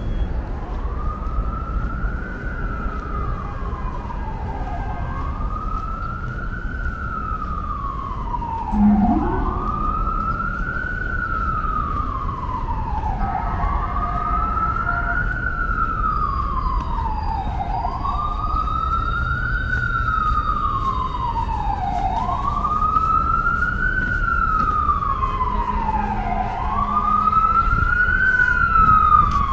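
Emergency-vehicle siren on the wail setting, rising and falling slowly about once every four seconds over a low rumble of street traffic. A short low rising blast sounds about nine seconds in, and a second, faster siren pattern joins near the end.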